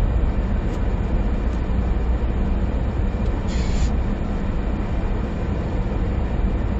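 In-cabin drone of a SsangYong Rexton Sports' diesel engine and tyres while cruising at a held, steady speed, with a heavy low rumble. A brief hiss sounds just past halfway.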